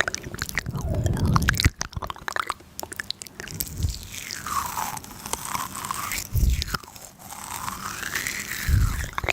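Close-miked biting and crunching of food, with chewing: dense crisp crackles and snaps, broken by a few low thumps.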